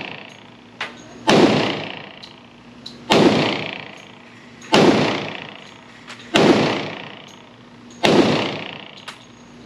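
Five shots from a 10mm Auto Glock pistol fired one at a time, about a second and a half apart. Each report echoes and dies away in an indoor range, with faint sharp ticks between shots.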